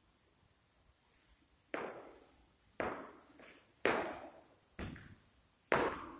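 Footsteps of hard-soled shoes on a tiled floor, about one a second, starting about two seconds in, each step ringing briefly in the bare, empty room.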